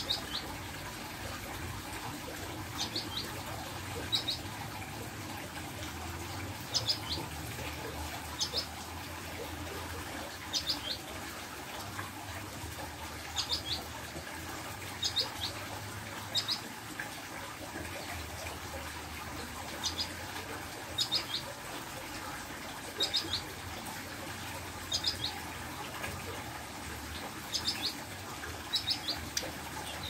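A ciblek gunung, a small prinia, giving short high calls of two or three quick notes, repeated every second or two.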